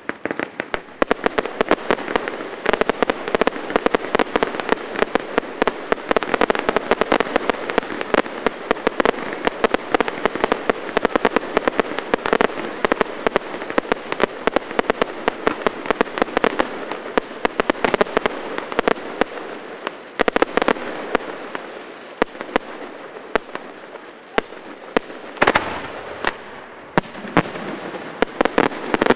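Fireworks display: a dense, continuous barrage of bangs and crackling, thinning briefly about two-thirds through before picking up again.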